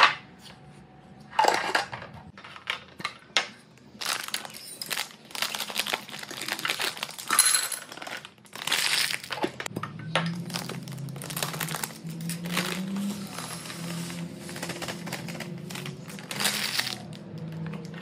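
Handling sounds from refilling kitchen containers: sharp clinks and taps of glass jars and lids set on a stone countertop, with crinkling and rustling of packaging and dry food as it is handled.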